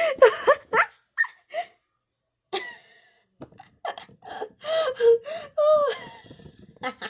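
A girl's voice making coughing and laughing sounds in many short bursts, with a pause of about a second near the middle.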